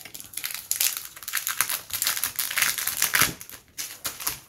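Clear plastic cellophane sleeve crinkling and crackling in quick, irregular clicks as it is pulled open and slid off a sticker book, thinning out near the end.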